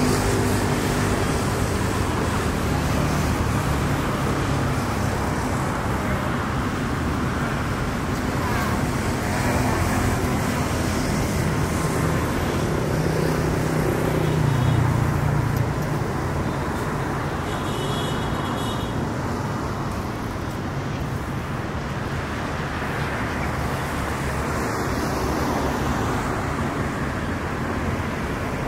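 Steady city street traffic: the engine hum and tyre noise of passing vehicles, with one passing closer and louder about halfway through. Two brief high-pitched beeps stand out near the middle.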